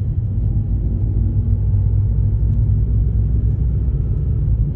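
Car driving with a steady low rumble and a faint whine from the front right wheel, which the owner suspects is a bad wheel bearing.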